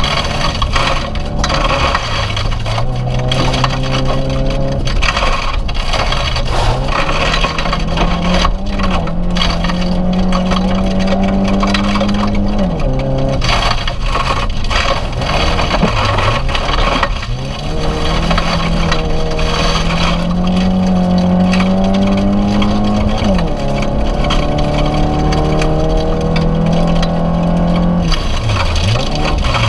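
Inside a rally car at speed on a gravel stage: the engine climbs through the revs and drops back at each gear change, falling right down to low revs twice, in the middle and near the end, as it slows. Gravel crackles and pelts the underside.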